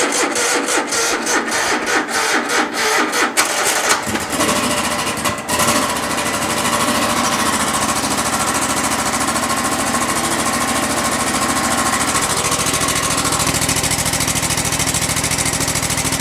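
A 27 hp Kohler V-twin engine on a zero-turn mower is turned over by its electric starter at about four strokes a second, with the choke on and the throttle at half. It catches about four seconds in, runs roughly for a moment, then settles into a steady run.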